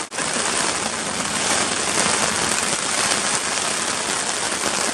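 Rain pattering steadily on the tent fabric overhead, a dense, even patter heard from inside the tent.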